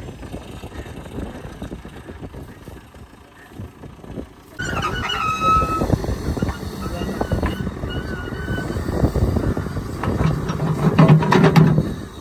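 Excavator's diesel engine and hydraulics at work as its bucket is lowered into a trench. It is quieter for the first few seconds, then louder, with a brief high squeal about five seconds in, and the engine is at its loudest near the end.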